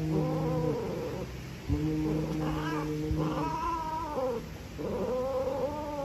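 Cats caterwauling while mating, with a female in heat held down by a male. A long, low, steady yowl breaks off about a second in and starts again, then gives way to higher, wavering yowls that rise and fall.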